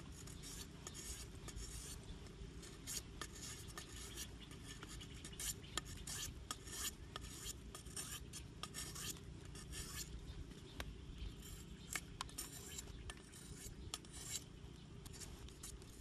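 Cleaver blade shaving a thin bamboo stick: a run of quick, irregular scraping strokes over a low steady rumble.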